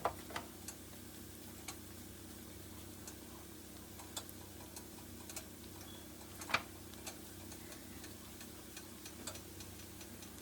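Dumplings frying in hot oil: scattered pops and crackles at irregular intervals, the loudest about six and a half seconds in, over a steady low hum.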